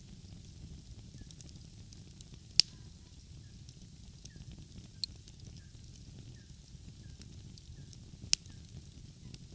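Wood fire crackling, with two loud sharp pops, one about two and a half seconds in and one near the end, and a smaller pop midway, over a low steady rumble. Faint short high chirps repeat about twice a second.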